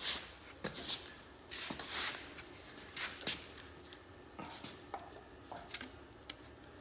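Scattered metal clinks and short scrapes of a pry bar being set and worked against the cylinder head of a Chevy 305 small-block, trying to break the head loose from the block.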